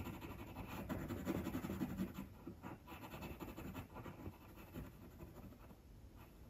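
Pencil scratching on primed stretched canvas in a run of short shading strokes, louder for the first couple of seconds, then fainter.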